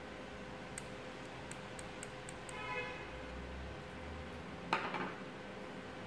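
Hands handling a WAGO 221 lever connector and a voltage-tester screwdriver: a few faint ticks, a short squeak about halfway, then one louder clack with a brief rattle about three-quarters of the way through.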